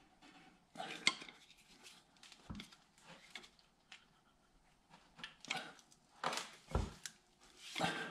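A metal hand tool clinking and scraping against a freeze plug in an engine block, in irregular short bursts with a couple of dull knocks, as the plug is worked at to break it loose.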